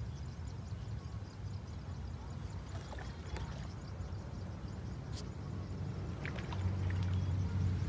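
A low, steady engine hum that grows louder near the end, with a few faint clicks and ticks over it.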